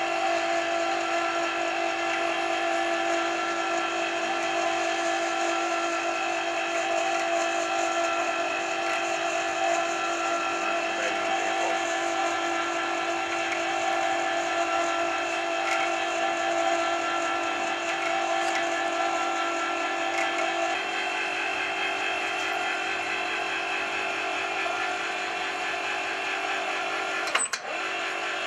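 Small electric wire-rope hoist on a mini roof crane running, its motor giving a steady whine of several even tones. Near the end a sharp click and a brief dip in pitch break it before it steadies again.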